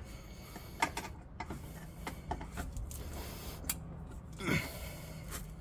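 Faint clicks and scraping of a plastic bumper trim piece being pried loose by hand with a tool, with a brief vocal sound about four and a half seconds in.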